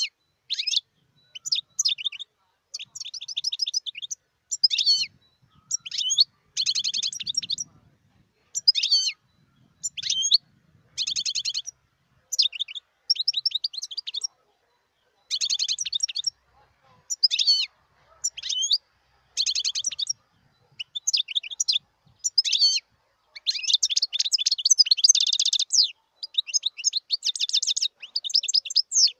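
European goldfinch singing: repeated phrases of quick, high twittering separated by short pauses, with denser rapid trills mixed in and a longer unbroken run near the end.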